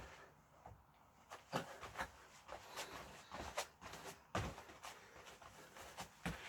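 A string of irregular short knocks and clicks, roughly one or two a second, with no speech or music.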